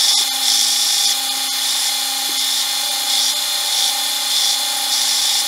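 Bench belt sander running steadily, with a high sanding hiss that swells at intervals as a small oak domino blank is pressed onto the moving belt.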